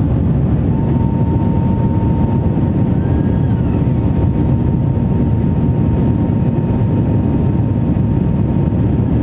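Airliner engines at takeoff power, heard from inside the cabin: a loud, steady rumble with a thin steady whine running through it.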